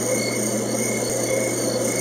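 Ambient sleep soundscape: a steady bed of noise over a constant low hum, with soft high tones pulsing two or three times a second.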